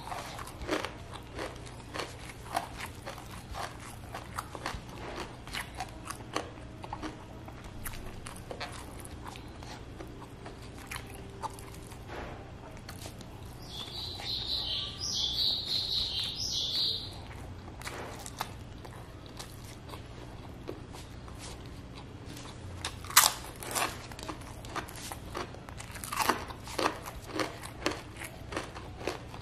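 Close-up chewing and biting of food eaten by hand, with many small crunches and mouth clicks; two crunches, about three seconds apart in the second half, are the loudest. A high chirping call from some small creature runs for about three seconds midway through.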